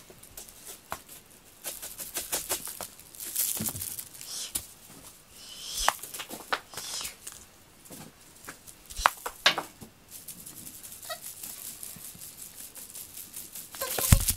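A cat at play with a toy on carpet: scattered light rustles, crinkles and taps, with a louder thump near the end.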